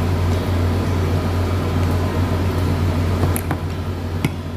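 Steady low hum of air conditioning, with a few short clicks near the end.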